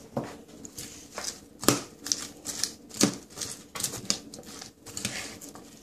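Salad of iceberg lettuce and chopped vegetables being tossed by hand in a stainless steel bowl: irregular rustling and light knocks, the strongest about one and a half seconds in and about three seconds in.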